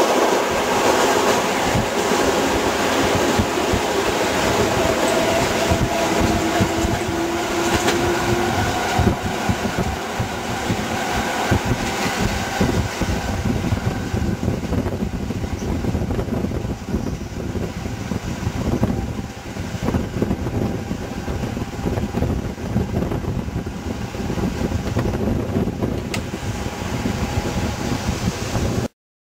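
Trains running at speed, heard from an open window of an EN57 electric multiple unit: steady wheel-and-rail rumble and wind, with a rising whine about five to nine seconds in. The sound cuts off suddenly near the end.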